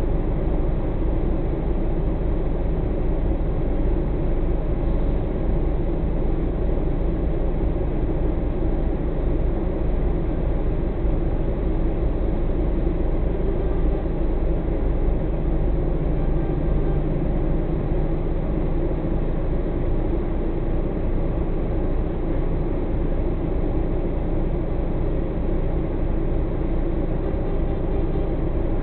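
Truck's diesel engine idling steadily, heard from inside the cab while it stands still.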